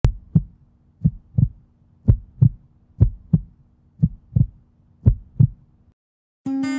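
Heartbeat sound effect: six lub-dub double thumps, about one a second, over a low steady hum, stopping a second before the end. Acoustic guitar music starts just before the end.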